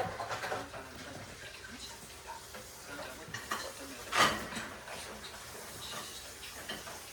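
A faint, indistinct voice over soft rustling, with one brief louder rush of noise about four seconds in.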